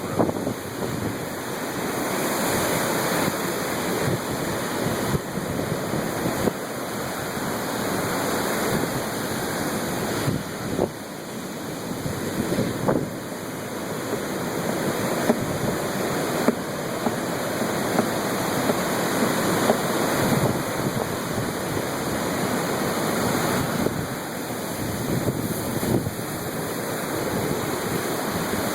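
Waves breaking and washing on the shore, a dense rushing that swells and eases every few seconds, with wind buffeting the microphone.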